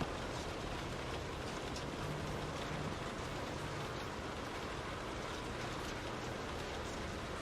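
Steady rain falling on a window, a continuous hiss with scattered fine drop taps.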